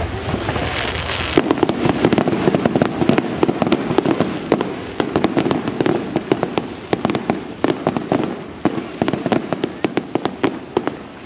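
Firework display: after a brief hiss, a dense, rapid run of sharp crackling pops from white crackling effects sets in about a second and a half in and keeps going, over a low rumble.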